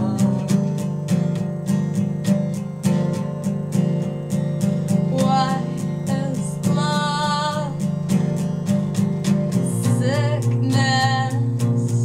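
Acoustic guitar strummed in a steady rhythm, with a woman's singing coming in in short phrases about halfway through and again near the end.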